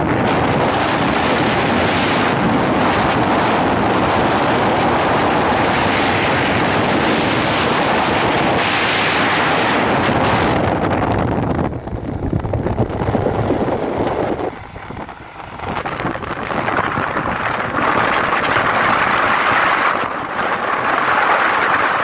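Wind buffeting the microphone over the running noise of a moving vehicle on the road. The rush eases off briefly twice past the middle, then returns.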